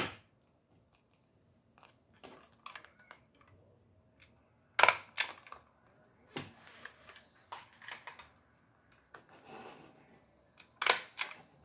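Handling noises of craft materials: scattered small clicks, taps and rustles, with one sharp click about five seconds in and a couple more near the end.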